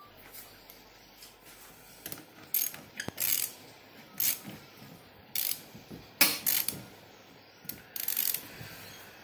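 Small ratchet socket wrench clicking in short, irregular bursts of strokes as it tightens the nut of a tap fitting through the wall of a plastic tub.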